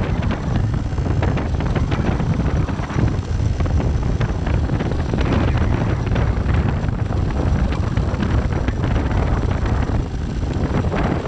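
Wind buffeting the microphone of a camera on a moving motorcycle, a steady heavy rumble, with the motorcycle running underneath.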